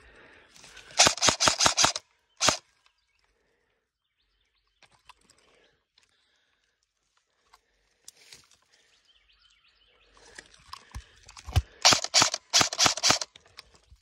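Airsoft rifle firing rapid bursts of sharp shots: about seven in a second near the start, then a single shot, and another rapid burst near the end.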